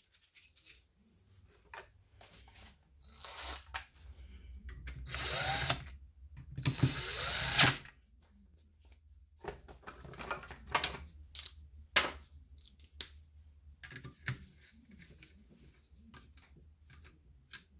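Cordless Craftsman power driver running in two short bursts about five and seven seconds in, driving down the screws of a new voltage regulator on an alternator. Scattered light clicks and taps of tools on the screws and metal case follow.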